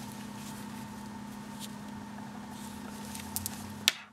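Soft rustling of a cloth drawstring pouch and its cord being pulled and handled, over a steady low hum. There are a few light clicks about three and a half seconds in and one sharper click just before the end.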